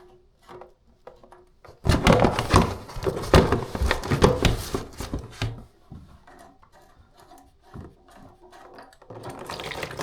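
Loud knocking and clattering for a few seconds as the plumbing fitting is worked on, then near the end water starts to rush and spill out of the loosened toilet supply connection.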